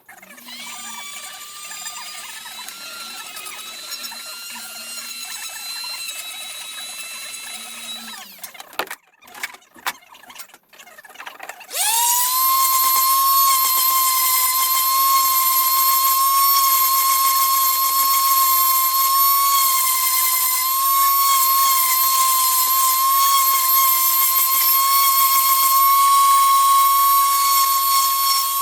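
Small high-speed electric tool motor running with a steady high-pitched whine. It stops about eight seconds in, a few clicks follow, then it spins up again about twelve seconds in and runs louder and steady.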